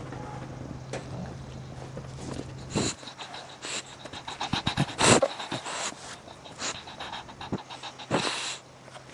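English bulldog breathing noisily with its face up against the microphone, in irregular breaths, the loudest about five seconds in and again about eight seconds in.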